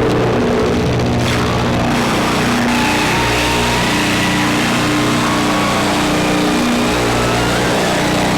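Electronic noise-drone jam from a Bastl Kastle 1.5 mini synth and a looped Krackatone run through effects pedal and reverb: a dense, loud drone over a noisy haze, with low tones stepping between a few pitches in a repeating pattern and thinner tones slowly gliding above.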